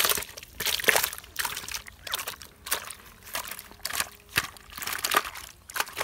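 Freshly caught fish thrashing in a plastic bucket of water, splashing in short bursts over and over, a little more than once a second.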